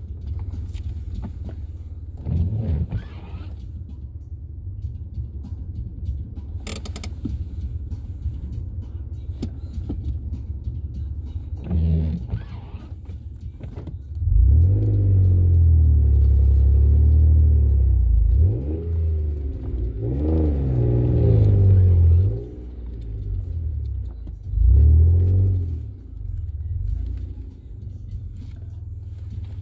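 Engine and drivetrain of a third-generation Toyota 4Runner heard from inside the cab while crawling a snowy trail: a steady low rumble with a few thumps from the rough ground, then the engine revving up and down in several pushes through the second half.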